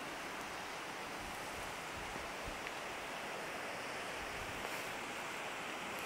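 Steady rush of a distant mountain river, with a few faint low wind buffets on the microphone.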